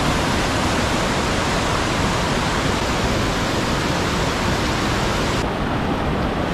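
Rushing water, a steady even hiss across all pitches; its highest part drops away about five and a half seconds in.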